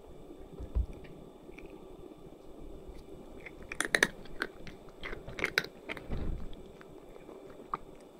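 A tabby cat crunching dry kibble: crisp, irregular crunches, a few at first and coming thickest in the middle.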